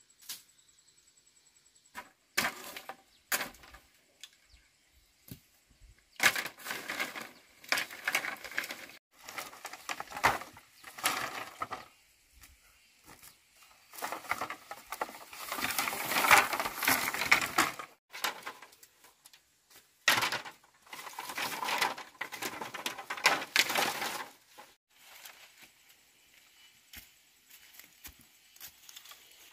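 Wood cracking and snapping with rustling, in irregular bursts of a few seconds each. It is loudest about halfway through and dies down near the end.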